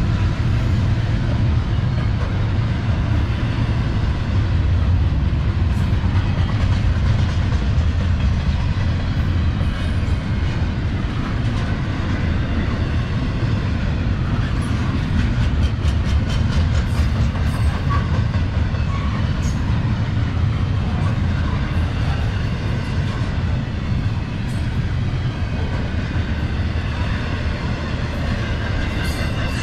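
Double-stack intermodal freight cars rolling past: a steady low rumble of steel wheels on rail, with scattered light clicks through the middle.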